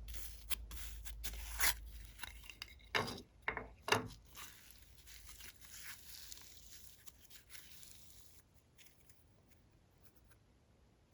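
Slime being stretched and pressed by hand: crackly rustling with several sharp pops during the first four seconds, dying away after about eight seconds.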